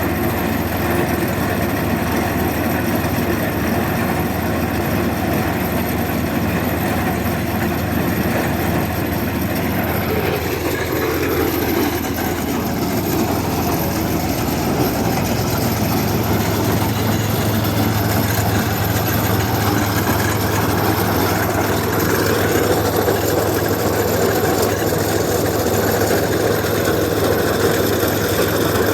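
A heavy engine running steadily. About ten seconds in its pitch drops, and it then settles into a strong low, even hum.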